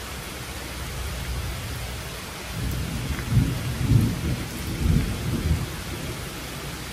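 Steady rain falling, with a low rumble of thunder that swells about two and a half seconds in, peaks a few times and fades by about six seconds.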